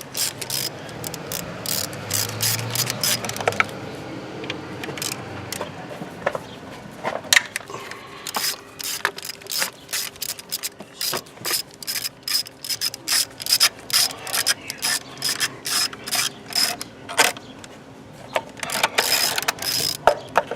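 Ratchet wrench clicking in quick runs of strokes, with short pauses between runs, as a bolt is worked in the engine bay.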